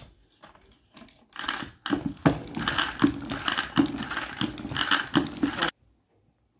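Plastic spin mop being worked by pushing the handle up and down so the wringer basket spins. It makes a quick, even run of plastic clattering and whirring strokes, about two or three a second, which cuts off suddenly near the end.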